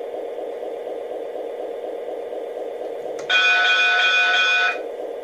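MTH Rail King O-gauge E-8 model diesel locomotives running on their track with a steady rumble from the onboard sound system. About three seconds in, the model's horn sounds one steady blast of several tones at once, lasting about a second and a half and cut off sharply.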